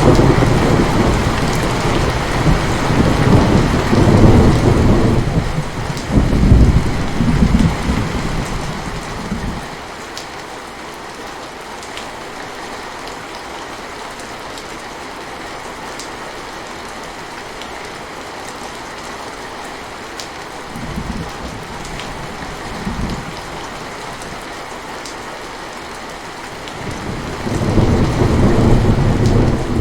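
Steady heavy rain with rolling thunder: a long rumble through the first nine seconds or so, two short rumbles about twenty seconds in, and another swelling near the end.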